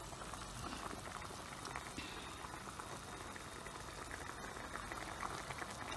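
Thick mutton nihari gravy bubbling in a pot on the stove, a steady simmer with many small pops.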